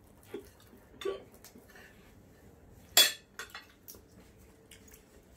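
Spoon and fork clinking and scraping on ceramic plates during a meal, in scattered light clicks with one sharper clink about three seconds in.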